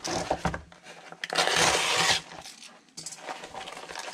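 A paper shipping envelope being torn open by hand: handling rustles, then one loud rip of about a second, then quieter crinkling of the paper.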